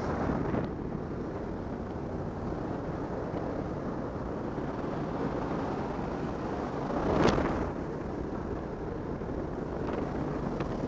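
Steady rush of wind and aircraft engine noise inside a jump plane flying with its door open, with a brief louder swell about seven seconds in.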